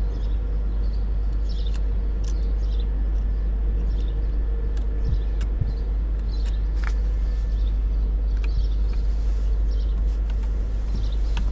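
Steady low rumble with a faint steady hum, and scattered small clicks from handling the steering-wheel paddle shifter parts.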